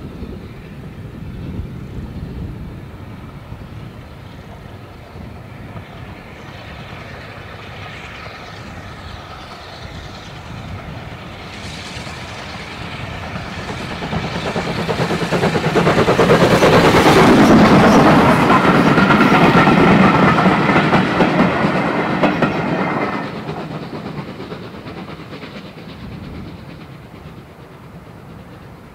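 LSWR T3 4-4-0 steam locomotive No. 563 working hard with its coaches, its exhaust beats growing louder as it approaches. Its wheels clatter over the rail joints, loudest as it passes about midway through, then the sound drops away suddenly and fades as the train goes by.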